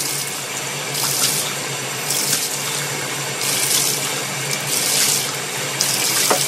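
Water running from a bathtub tap, with splashes from cupfuls of water poured over a wet dog's coat every second or so.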